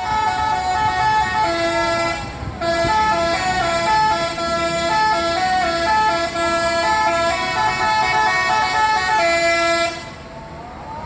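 Indonesian multi-tone "telolet" bus horn playing a tune: several horn notes sound together and change pitch in a sequence of held notes with short gaps, stopping about ten seconds in.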